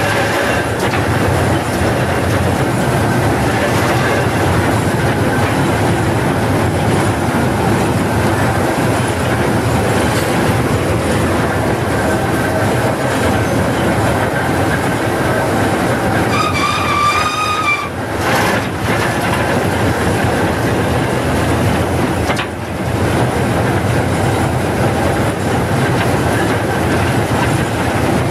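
Lorain 80-J cable shovel working, heard from inside its cab: its Caterpillar diesel engine runs steadily under the rattle and clatter of its machinery. A brief wavering squeal comes about two-thirds of the way through.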